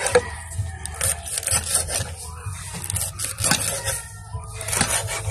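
Long kitchen knife slicing through rolled taro leaves and striking a wooden cutting board: repeated, irregular chopping strokes, a few a second, with some scraping of the blade on the board.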